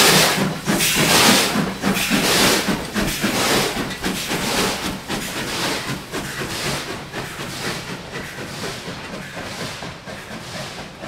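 Narrow-gauge K-36 steam locomotive No. 480 working slowly past, its exhaust chuffing in a steady rhythm of about one and a half beats a second with hissing steam. The chuffs fade steadily as the engine pulls away.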